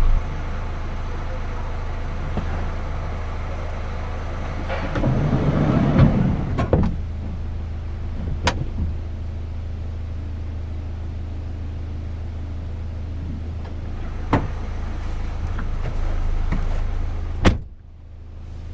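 Car engine idling with a steady low hum, with a louder stretch of knocks and handling noise about five to seven seconds in and a few single sharp clicks later; the sound drops away suddenly near the end.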